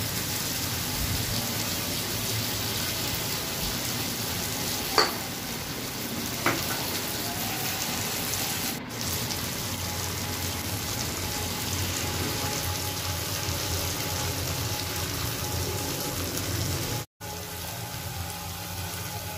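Chopped vegetables frying and sizzling steadily in a hot kadai as bottled sauces are poured in and stirred with a metal spatula. Two sharp knocks come about five and six and a half seconds in, and the sizzle cuts out for an instant near the end.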